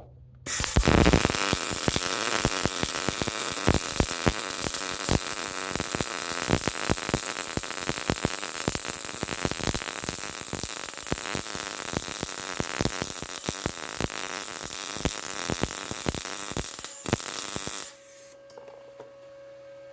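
Electric welding arc running a bead on pipe: a steady crackling sizzle for about seventeen seconds, with a brief break near the end before it stops. After the arc stops, a quieter steady hum with a held tone remains.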